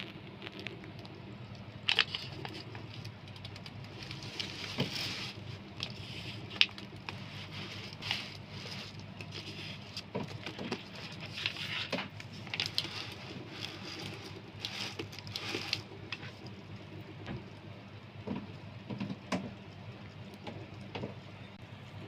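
Water from a small tabletop fountain trickling and splashing down a stack of scallop shells into a foam basin: a steady patter with many small, irregular drips and splashes.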